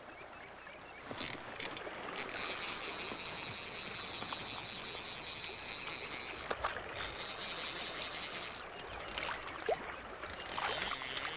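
Fast-flowing stream water rushing steadily, with a few brief knocks, while a hooked trout is played on a fly rod.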